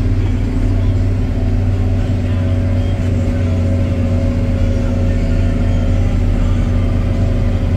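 Fendt 920 Vario tractor's MAN six-cylinder diesel engine running steadily under way on the road, heard from inside the cab as an even drone.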